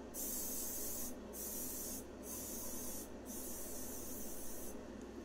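Canned compressed air hissing in about four blasts of roughly a second each, with brief breaks, stopping near the end: lint and dust being blown off a plastic AR-15 pistol grip during prep for painting.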